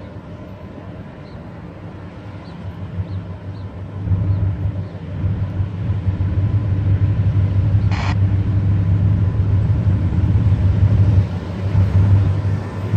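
Norfolk Southern freight train of covered steel coil cars rolling past on the rails with a steady low rumble, which grows louder about four seconds in. A brief high-pitched sound cuts through about eight seconds in.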